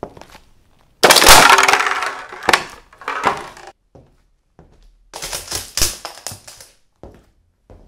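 A high-heeled shoe crushing clear plastic cups: a loud run of plastic cracking and crackling for about three seconds, with several sharp cracks as the heel presses down. After a short pause comes a second, shorter run of cracking as a heel crushes a small plastic toy house.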